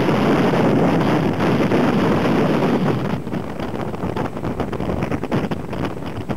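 Strong wind buffeting the microphone over the noise of heavy storm surf breaking below. About three seconds in, the wind eases slightly and turns gustier and more choppy.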